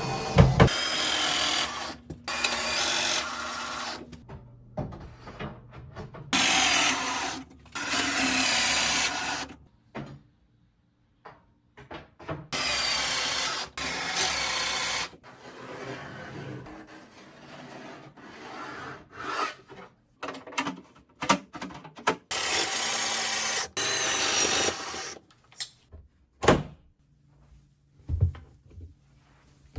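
A power drill running in repeated bursts of one to three seconds, driving into wood, with knocks and handling sounds between the bursts.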